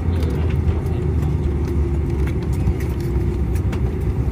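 Steady low rumble of airliner cabin noise heard inside the cabin as the jet taxis slowly toward the gate.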